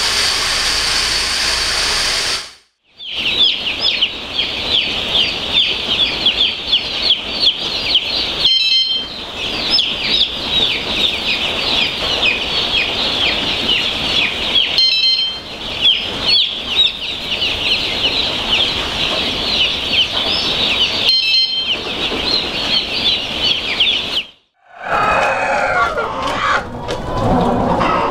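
A large flock of day-old chicks peeping: rapid high chirps that crowd together almost without a break for about twenty seconds. Before it there is a steady machine hum, like ventilation fans. Near the end, adult hens clucking take over.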